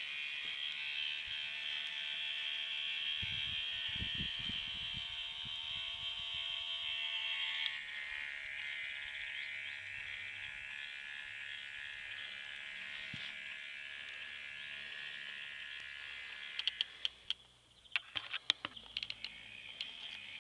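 K'nex car's small electric motor and plastic gear train running with a steady high whine, which shifts slightly lower about eight seconds in. Near the end the whine briefly fades and a quick run of sharp plastic clicks and clatters is heard.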